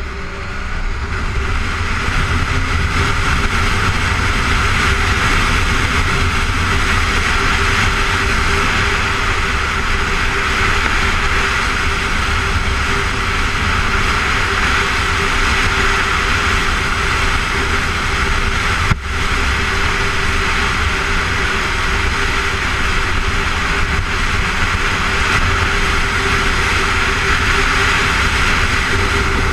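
Honda motorcycle riding on the freeway: the engine runs at a steady pitch under constant wind and road noise, growing louder over the first second or two. One brief click about two-thirds of the way through.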